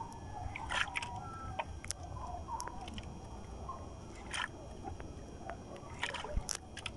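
Faint short clucking-like animal calls scattered over a low steady rumble of water and boat, with a few sharp clicks and knocks as the fishing reel and rod are handled.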